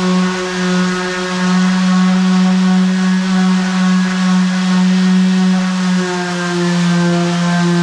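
Electric hand sander running steadily on a plywood desk top: a constant motor hum over the hiss of abrasive on wood. Its pitch drops slightly about six seconds in.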